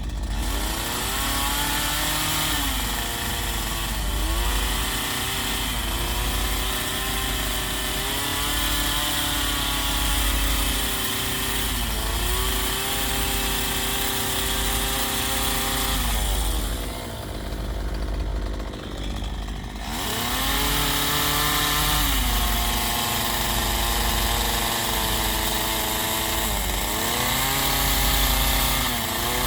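Chainsaw carving into a wooden log, the engine note sagging and recovering over and over as the chain bites and is eased off. Near the middle the cutting hiss stops for a few seconds while the engine keeps running, then the saw goes back into the wood.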